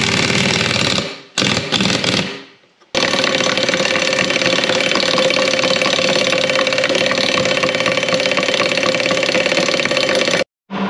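Pneumatic air hammer hammering rapidly on a boat's P-bracket to drive out a stuck cutlass bearing. It runs for about a second, gives a short burst, then runs steadily from about three seconds in and cuts off suddenly just before the end.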